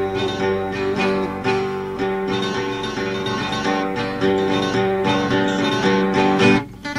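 Acoustic guitar playing the accompaniment for Sardinian sung improvised verse on its own, strumming held chords that break off briefly near the end.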